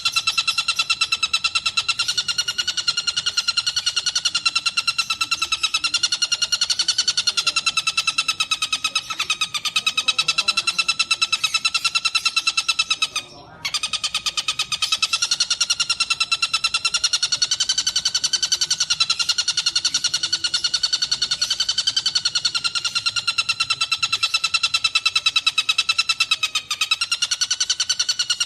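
Songbird giving a continuous rapid buzzing trill at a steady pitch, broken off briefly about halfway through.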